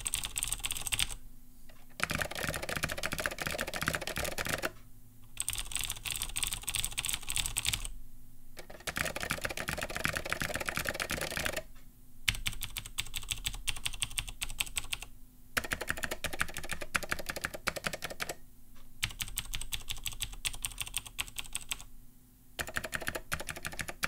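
Typing on two mechanical keyboards in alternating stretches of about three seconds, split by short breaks. One is a Razer BlackWidow with clicky Cherry MX Blue switches, sharper and higher. The other is a custom Apple IIc keyboard with Amber Alps SKCM switches, fuller and lower.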